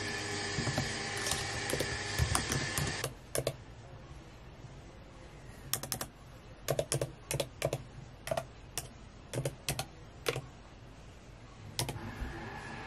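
Typing on a laptop keyboard with long nails: irregular, separate key clicks. A steady background noise runs under the first three seconds, cuts out, and returns near the end.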